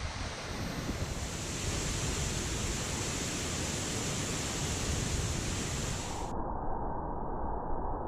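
Waterfall rushing: a steady, dense noise of falling water. About six seconds in it abruptly turns muffled and dull, as the upper range of the sound drops away.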